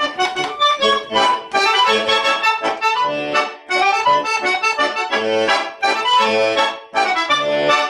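Concertina playing a traditional Molise folk tune in quick chords and melody notes, with brief breaks about three and a half seconds in and near the end.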